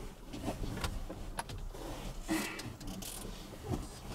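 Rustling and scuffing of a person squeezing through the rear sliding window of a pickup truck cab, clothes and body brushing the window frame and seat, with a few light clicks and a louder scuffle a little past halfway.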